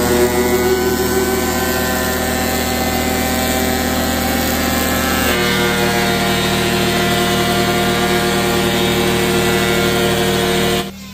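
Makita portable thickness planer running under load as a wooden board feeds through, a steady machine whine with cutter-head noise. The sound shifts about five seconds in and cuts off abruptly near the end.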